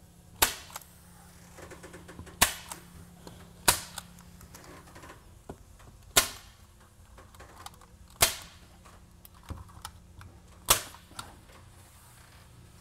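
Manual hand staple gun firing staples through a paper-faced drywall corner trim into a drywall soffit, to pull down a flange that is kicking out. Six loud snaps, a second or two apart, with a few fainter clicks between.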